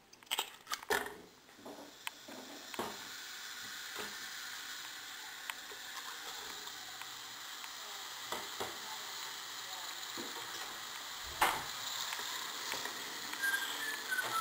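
Ground meat sizzling as it hits hot olive oil in a stainless steel pot: a few knocks as the meat drops in, then a steady frying hiss, with a sharp knock of utensil against the pot near the end.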